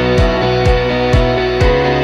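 Instrumental background music with a steady beat, about two beats a second, over sustained chords.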